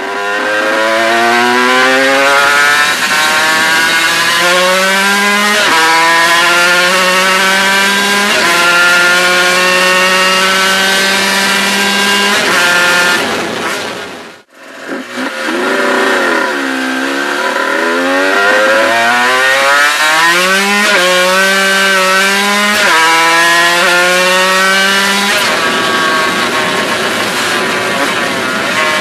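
Aprilia RS250's two-stroke 90° V-twin, breathing through LUFO expansion-chamber exhausts with MFactoryWest silencers and no air filters, revving hard up through the gears. It runs with a rising shriek that drops back at each upshift. Near the middle the sound breaks off briefly and the revs fall and swoop, then it pulls up through several gears again, over a steady rush of noise.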